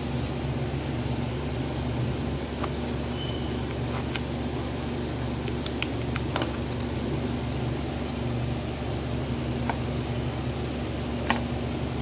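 Steady low mechanical hum, with a few faint scattered clicks and scratches of a small blade picking at the centre of a loudspeaker cone where its dust cap has been cut away, and one sharper click near the end.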